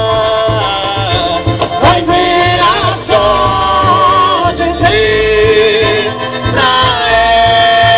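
Loud festa junina dance music with a steady low beat under long held melody notes, some of them wavering up and down.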